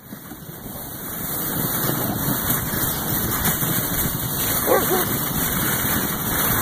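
A dog sled running over snow-covered ice, a steady rushing, scraping hiss that builds over the first second or so. A short wavering whine sounds about three-quarters of the way through.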